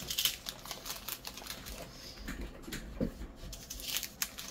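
Small plastic bags of diamond-painting drills being handled and sorted: irregular light clicks from the resin drills and bags, with soft plastic rustling.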